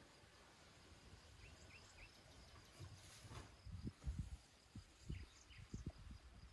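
Faint outdoor quiet: a few short bird chirps, a steady high insect tone, and soft low thumps in the second half.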